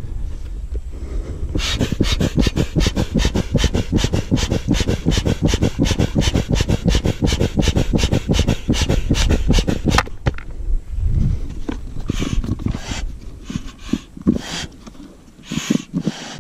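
Foot bellows pump inflating an inflatable boat: rapid, even puffs of air, several a second, which stop about ten seconds in. After that come a few irregular rustles and knocks as the pump is handled.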